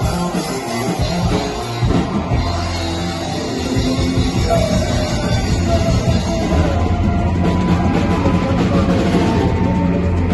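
Background rock music with drums.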